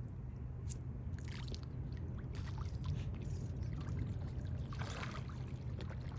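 Turtles moving in water: small scattered splashes and trickling, over a steady low rumble.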